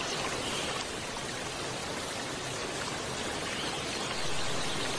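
Steady rush of flowing water from a small rocky stream.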